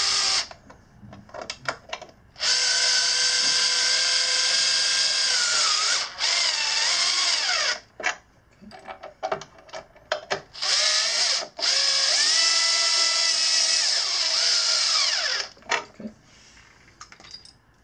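Cordless drill-driver driving deck screws into the rear of a scooter's metal deck. It gives two long runs of motor whine, each about four seconds, and a shorter one, with brief blips between. The pitch drops at the end of each long run as the screw seats and tightens.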